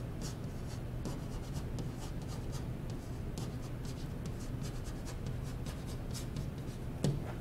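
Digital pen stylus writing by hand: quick short scratches and taps of the pen tip as words are written out, over a steady low hum.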